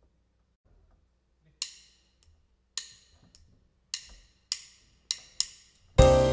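A drummer's count-in: six sharp wooden clicks of drumsticks, two slow and then four quicker, setting the tempo. Near the end the jazz piano trio of piano, double bass and drum kit comes in together, loud.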